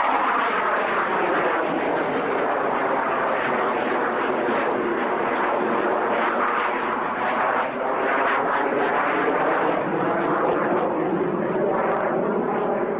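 De Havilland Sea Vixen's twin Rolls-Royce Avon turbojets, a loud steady jet noise as the aircraft flies its display. The pitch falls over the first two seconds as it passes.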